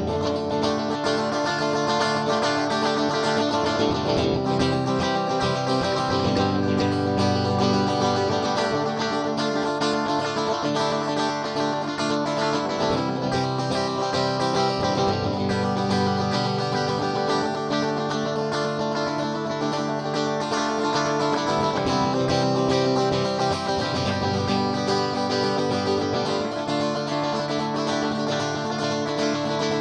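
Background music led by guitar, with a steady strummed and plucked accompaniment.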